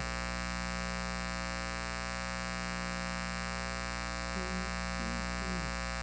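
Steady electrical mains hum and buzz, a stack of many evenly spaced tones. A faint voice is heard briefly about four seconds in.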